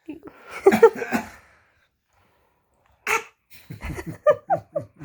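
A dog coughing and hacking in two bouts, the second a quick run of short hacks, about four a second. The owner takes the cough to be faked.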